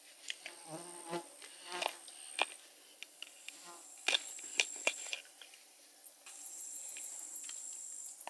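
Insects trilling high and steady in stretches, with scattered sharp clicks and knocks of a knife cutting a fish into pieces.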